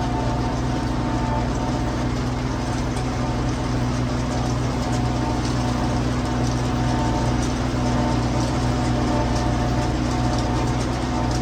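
Livestock feed mixer machine running at a steady pace, a low engine drone over a constant churning hiss.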